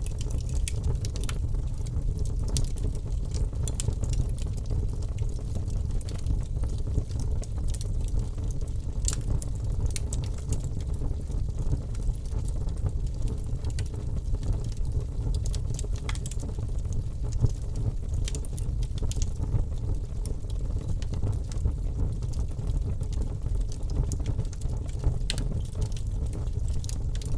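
Wood fire crackling in a fireplace: a steady low rumble of the flames with frequent small sharp pops and snaps scattered irregularly throughout.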